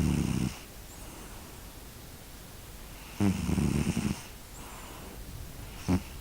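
Snoring: a rattling snore at the start lasting about half a second, a longer one about three seconds in lasting about a second, and a short sharp breath near the end.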